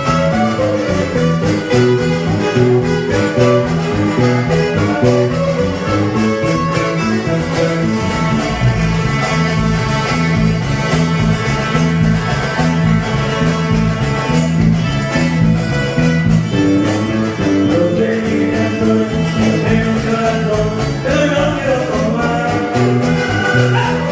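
Live sierreño music from acoustic guitars, including a strummed twelve-string guitar, over a stepping bass line.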